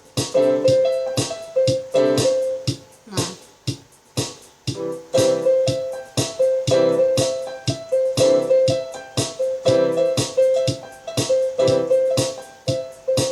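Electronic keyboard played with a piano voice: a steady run of repeated notes and chords. It cuts off suddenly at the end as the keyboard is switched off.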